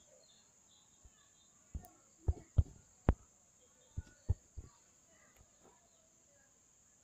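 A handful of short knocks and thumps, clustered from about two to four and a half seconds in and loudest about two and a half and three seconds in, over a quiet background with faint bird chirps.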